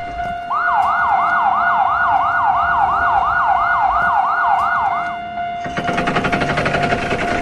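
Electronic siren sound effect: a yelping tone sweeping upward over and over, about four times a second, for roughly four and a half seconds, over a steady high beep. Rapid, evenly spaced alarm pulses sound before and after the yelping.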